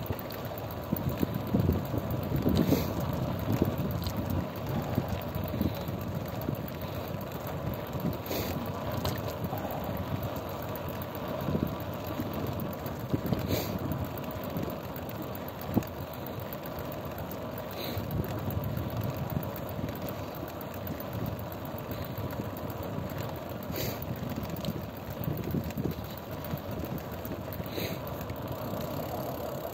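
A vehicle on the move: steady road and engine noise with wind on the microphone, and a short sharp tick every five seconds or so.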